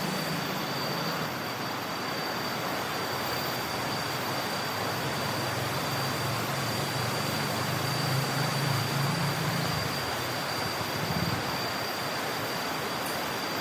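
Forest ambience: a steady drone of kinjeng tangis cicadas with a constant high whine, over a continuous rustle of dry teak leaves. A low rumble swells about eight to ten seconds in.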